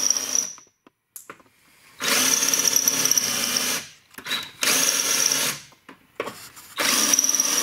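Cordless drill boring through the car's sheet-steel body to drill out spot welds. It runs in separate bursts: a short one at the start, then three runs of one to two seconds each, with a steady high whine.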